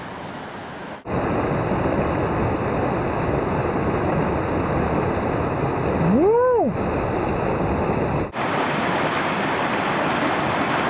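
Rushing whitewater river: a loud, steady rush of water that changes abruptly about a second in and again near eight seconds. About six seconds in, one short pitched whoop rises and falls over it.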